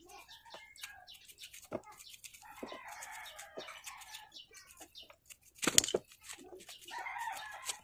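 A small brush scrubbing a greasy gear over a tub of cleaning fluid: a run of quick scratchy clicks and light splashing, with one louder knock or splash near six seconds in.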